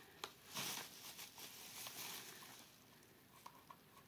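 Plastic bubble wrap rustling and crinkling as it is handled, loudest about half a second in and dying down by the middle, followed by a few light clicks.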